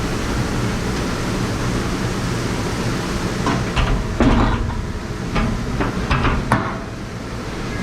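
Steady machine noise and hum of a commercial kitchen's dish area, with a handful of sharp clattering knocks of dishes being handled between about three and a half and six and a half seconds in.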